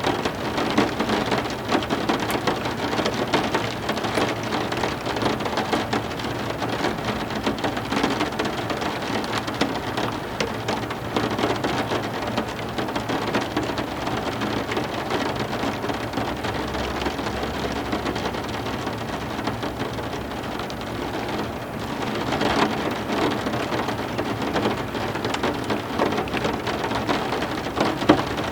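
Heavy rain falling steadily, with many individual drops ticking close by, and a low thunder rumble in the second half.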